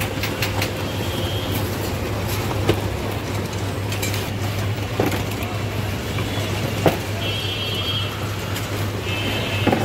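Steady low hum of a roller ice cream machine's motor, with four sharp knocks spread through and a few brief high-pitched tones.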